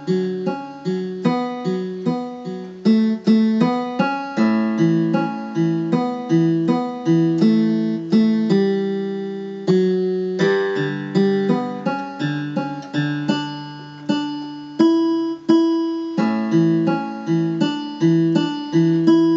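Electronic keyboard playing a song's instrumental interlude at a slow tempo: bass notes under an arpeggiated melody, each note struck and fading, about two to three notes a second.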